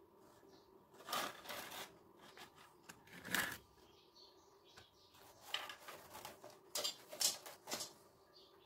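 Short, irregular scraping and rustling handling noises as a plastic air hose is pushed and twisted onto the inlet fitting of a small model steam engine, with a cluster of quick scrapes in the second half.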